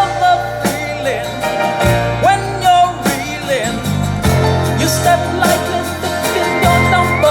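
Music: an instrumental break in a country-flavoured song, with a slide guitar gliding between notes over a steady bass line and a drum beat.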